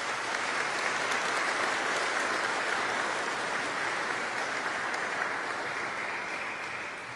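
Audience applauding: steady, dense clapping that starts to die away near the end.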